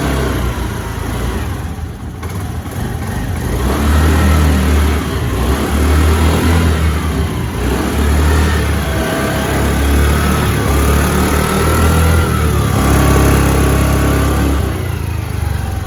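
Scooter's small petrol engine running just after a cold kick start and being revved to warm it up: several throttle surges, rising and falling, from about four seconds in.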